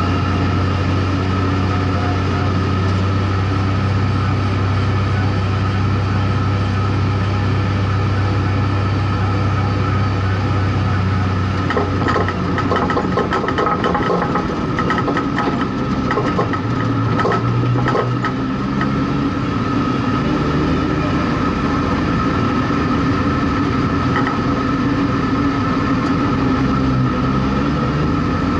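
Street stock race car's engine running at low speed, heard from inside the car, a steady drone whose pitch drops about twelve seconds in. From then on, for about six seconds, rattles and clatters sound over it.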